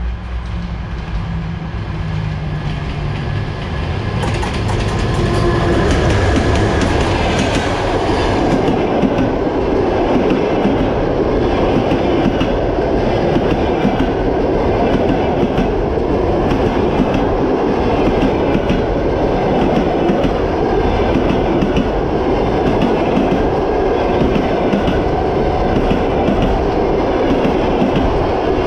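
EP1M electric locomotive and express passenger train approaching and passing at speed. The sound grows louder over the first several seconds as the locomotive nears and goes by, then settles into the steady rumble and clickety-clack of the passenger coaches' wheels over the rail joints.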